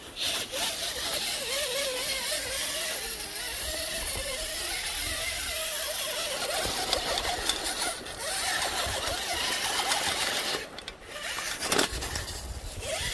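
Radio-controlled rock crawler's drive motor and gearbox whining under throttle, the pitch wavering up and down as it crawls, over the crunch and scrape of its tyres on rock and gravel. The sound briefly drops off near the end.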